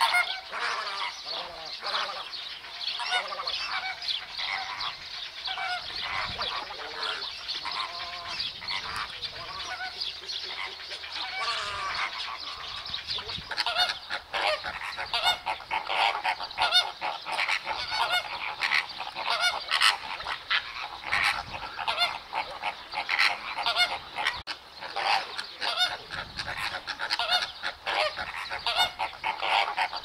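A flock of greater flamingos calling: many short, overlapping honking calls in a continuous chorus that grows denser and louder about halfway through.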